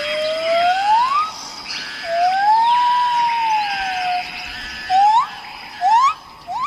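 Bird giving clear whistled calls: a long rising whistle, then a long whistle that rises and falls, then three short quick upslurred whistles near the end. Under them runs a steady high buzz of insects.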